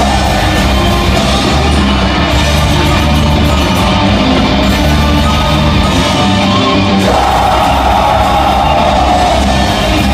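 Folk metal band playing live and loud: held low bass notes under a dense wall of distorted instruments, with yelled or sung vocals, without a break.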